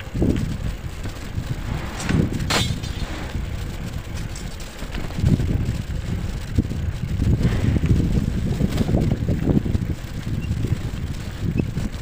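Uneven low rumble with wind buffeting the microphone, from a bike moving along a rough dirt road. There is a brief sharp click about two and a half seconds in.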